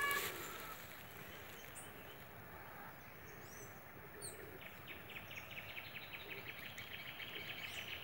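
Quiet outdoor ambience with a few faint, brief, high bird chirps. In the second half a faint, rapid, even ticking trill joins in.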